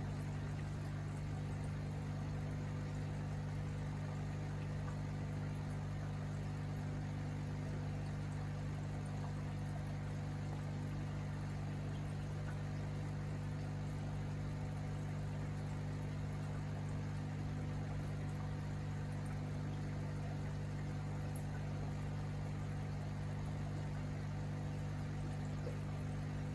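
Aquarium aeration running steadily: a low, even hum with water bubbling and trickling as air rises through the tank.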